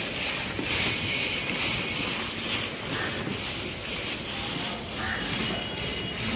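Footsteps crunching through a thick layer of dry fallen leaves, at about two steps a second.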